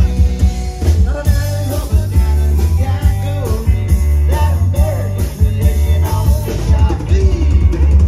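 Live tropical-rock cover band playing an upbeat song: drum kit, heavy bass and guitar, with a melody line running over them.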